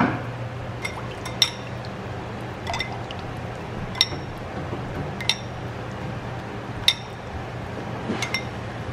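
A metal spoon clinking against a ceramic bowl as sauce is scooped and spooned over poached chicken: about eight light, ringing clinks, irregularly spaced a second or so apart, with a pair close together near the end.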